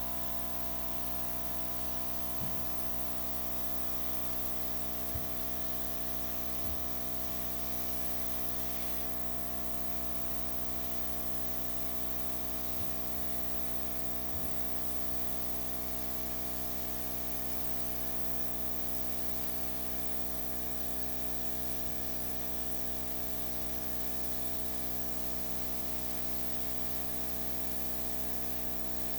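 Airbrush air supply running steadily, its motor humming under a hiss of blown air as it pushes wet acrylic paint across the canvas. A few faint knocks sound in the first seven seconds.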